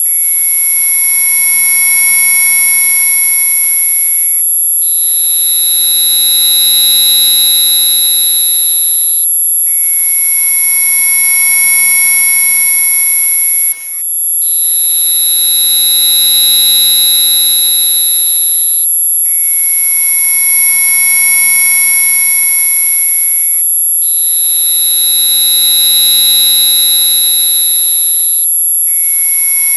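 Synthesized repellent tone track: a loud chord of steady electronic pure tones topped by a very high, piercing tone. The blend of lower tones switches about every four and a half seconds, with a brief dropout between each block.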